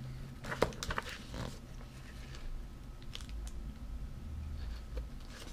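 Handling noise from a plastic snack wrapper and a paper sheet: a cluster of sharp crinkles and crackles with one loud snap between half a second and a second and a half in, then a few faint ticks.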